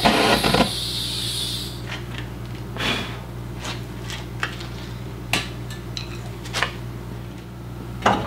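A heating torch's hiss cuts off within the first second. Then come scattered sharp metal clinks and taps, roughly one a second, from tools working at rusted-in screws on the steel pump panel, over a steady low hum.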